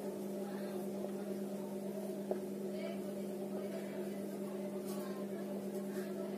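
A steady low electrical hum, with faint scratchy strokes of a marker writing on a whiteboard and one small click about two seconds in.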